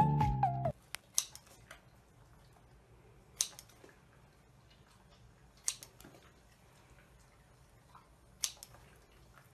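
A children's pop song cuts off under a second in, then scissors snip four times, a couple of seconds apart, each a short sharp click as they cut through a small piece of food.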